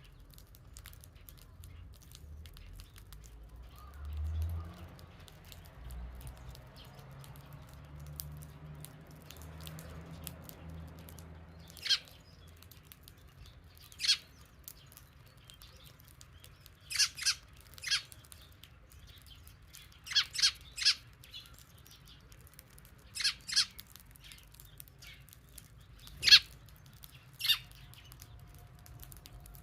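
Eurasian tree sparrows chirping: about a dozen short, sharp chirps, some single and some in quick runs of two or three, starting a little before halfway. A low rumble comes and goes in the first half.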